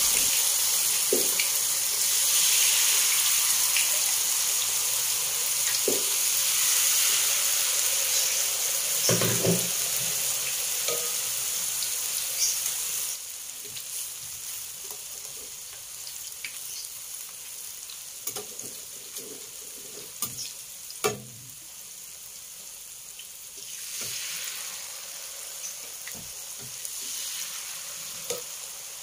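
Peanut rice-flour batter (peyek) sizzling in hot oil in a stainless steel wok as ladlefuls are poured in. The frying is loud for about the first half, then drops suddenly to a softer hiss, with a few short knocks along the way.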